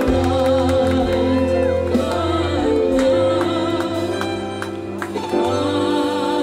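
Live orchestral music: strings holding chords under a wavering melody, with singing.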